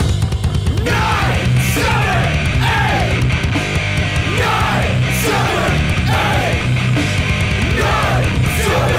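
Heavy rock music with a pounding drum beat; shouted vocals come in about a second in.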